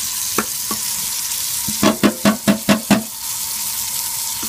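Hot tap water running steadily into a stainless steel kitchen sink and down the drain, flushing it after dish soap. About two seconds in, a quick run of about six knocks sounds over the water.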